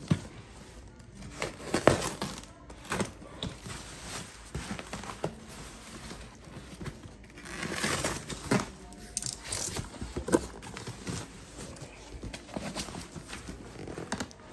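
Cardboard box being cut open with a knife and its flaps pulled back: irregular scraping, rustling and tearing of cardboard and packing tape, with a few sharp clicks and a longer rustle about eight seconds in.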